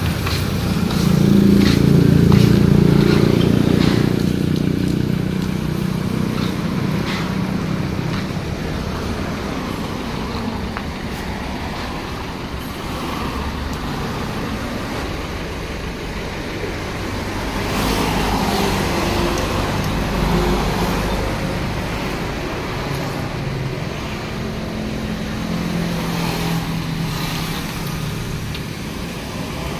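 Hyundai Starex's D4CB four-cylinder turbodiesel running as the van is driven on a test drive, the engine swelling louder about a second in and again past the midpoint. A few sharp clicks in the first few seconds.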